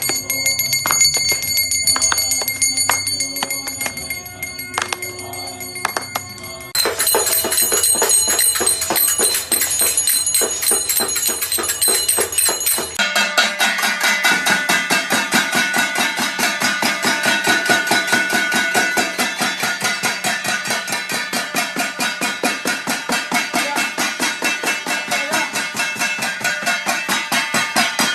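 Bells ringing and metal clanging, in three segments that change abruptly: a ringing bell with scattered strikes, then a denser clatter, then fast, even strikes.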